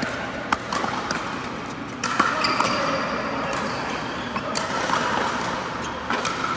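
Pickleball paddles striking the hollow plastic ball: a scatter of sharp, irregular pops, the loudest about two seconds in, over a steady background hubbub from the court.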